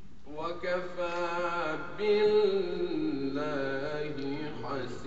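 A young man's voice reciting the Quran in Arabic in a melodic chant, holding long notes that step up and down in pitch, starting a moment in after a brief pause.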